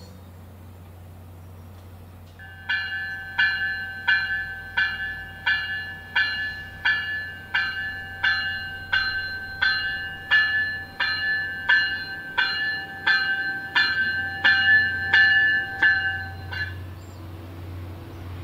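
MBTA commuter train's warning bell ringing as the train pulls into the station, a steady series of strikes about three every two seconds that stops a couple of seconds before the end. A low rumble from the arriving train runs underneath.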